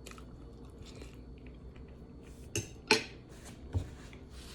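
Cutlery clinking against a plate during a meal: scattered light taps, then two sharp clinks a bit past halfway and a softer knock just after.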